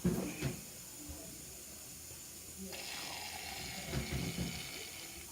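Aerosol can of shaving foam being sprayed: a steady hiss that starts suddenly about halfway through and keeps going, after a few soft knocks of the can being handled.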